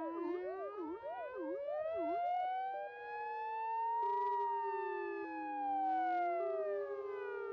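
Several fire engine sirens sounding at once, sounded in protest. Fast yelping sweeps for the first couple of seconds overlap slow rising and falling wails, and a two-tone hi-lo pattern steps in briefly past the middle.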